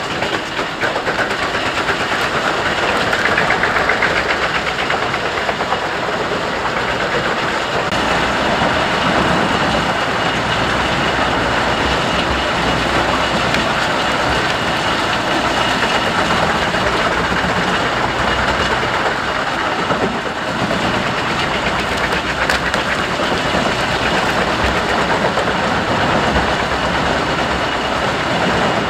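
Jenz HEM 593 Cobra truck-mounted wood chipper running under load as its crane grab feeds logs and branches into the infeed: a loud, steady mix of engine and chipping noise.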